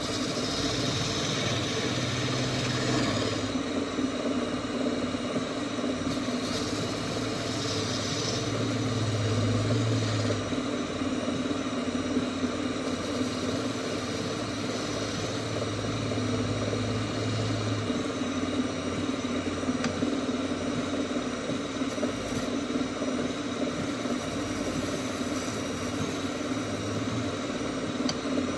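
Wood lathe running steadily with a constant motor hum, with a high hiss that comes and goes every few seconds.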